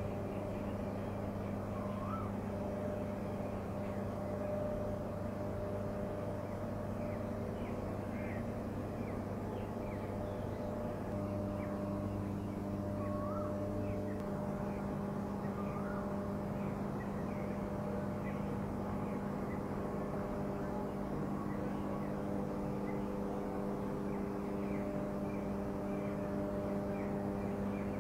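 Stacker-reclaimer's electric drive machinery humming steadily: a low, even hum with several overtones, whose mix changes slightly about halfway through.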